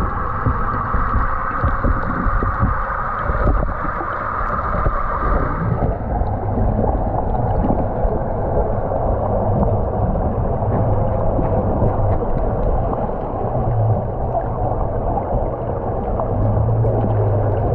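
Underwater noise picked up by a camera in the water: muffled water rushing and gurgling, with a steady low hum that fades in and out and a higher hiss band that dies away about five seconds in.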